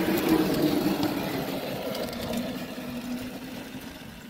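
The motor of a small ride-on miniature railway locomotive running as it pulls away along the track. Its pitch drops a little and the sound steadily fades as it moves off.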